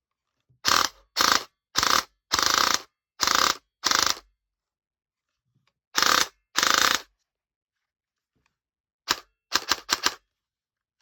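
KWA airsoft electric gun with a GATE Titan trigger unit firing short full-auto bursts, a rapid mechanical rattle: eight bursts in the first seven seconds, then a few very short quick bursts near the end.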